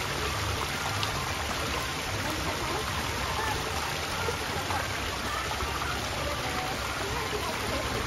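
Steady rush of running water, with faint short chirps scattered over it.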